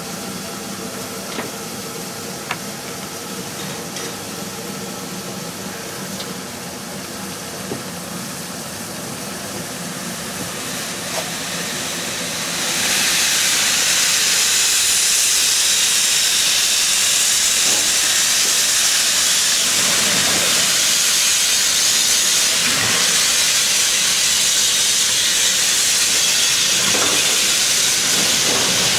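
Steam locomotive standing with a steady low hum and a few light clicks. About twelve seconds in, a loud steady hiss of escaping steam starts abruptly and keeps going.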